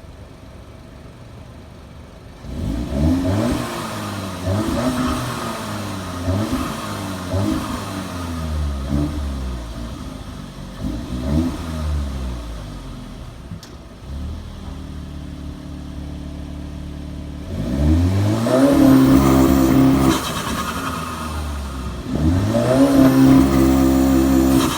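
2019 Audi S3's turbocharged 2.0-litre four-cylinder, on a decatted, resonator-deleted exhaust with the cutout valve closed, revved in quick blips about once a second, fluttering through the blow-off valve as the throttle snaps shut. Later the revs are held steady on launch control, then twice climb to a loud, held high rpm.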